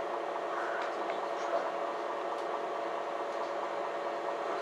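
Inside a MAN Lion's City G articulated city bus: a steady running sound of the bus with a constant hum of several tones over an even rush.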